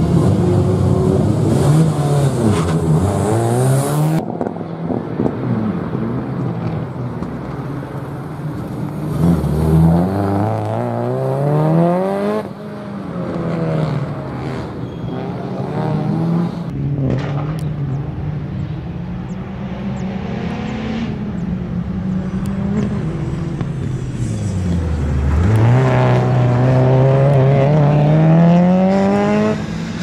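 Subaru Impreza WRX STI rally car's turbocharged flat-four boxer engine revving hard under acceleration. Its pitch climbs and drops back again and again at the gear changes, then falls low about 25 seconds in before climbing steadily once more.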